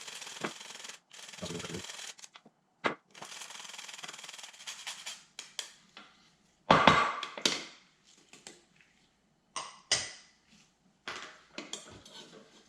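Whole nutmeg being grated: rasping strokes for about five seconds with a short break, then a loud knock about seven seconds in and a few lighter knocks and clatters.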